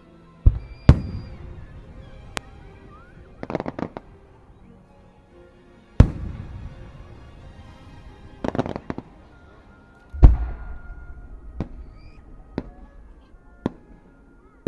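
Aerial firework shells bursting: heavy booms about half a second in, just under a second in, at about six seconds and just after ten seconds, each trailing a rumbling echo. Between them come quick clusters of crackling, and lighter single pops fall in the last few seconds.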